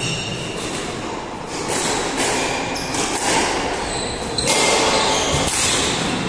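Squash rally: a series of sharp hits as the ball is struck by rackets and hits the walls, with short high squeaks of court shoes on the wooden floor.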